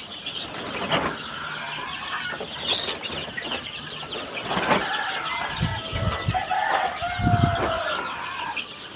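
A large flock of chickens and chicks: a dense, constant chorus of high chick peeps, with hens clucking over it, and a few low thumps in the second half.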